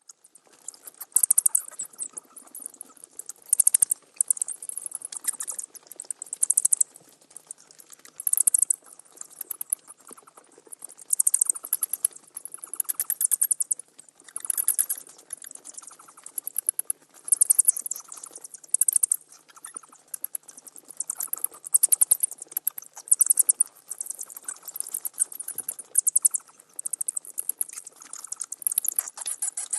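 Bats squeaking and chattering: rapid trains of very high-pitched chirps in bursts of about a second, repeating every second or two.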